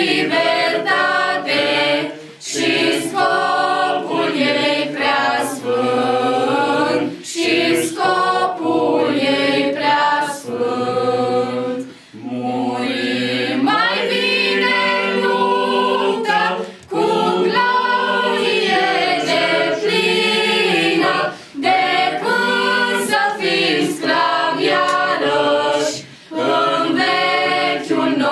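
Small choir of girls singing a cappella, with short pauses between phrases about every five seconds.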